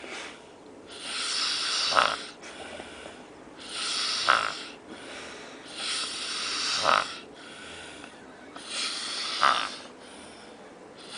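A man snoring heavily in a steady rhythm: four snores about two and a half seconds apart, each building over a second or so and ending in a sharp loud snort.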